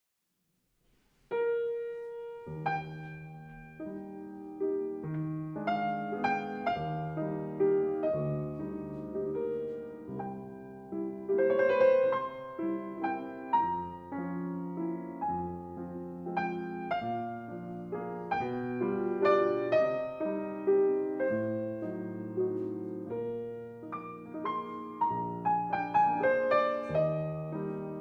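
Piano music, a steady stream of notes and chords beginning about a second in.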